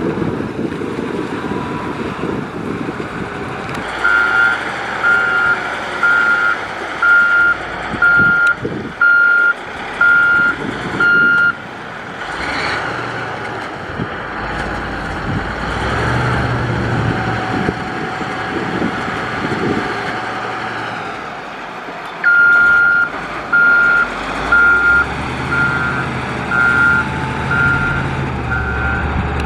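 Reversing alarm of a Caterpillar 140H motor grader beeping evenly, a bit more than once a second, in two spells, over the steady running of its diesel engine.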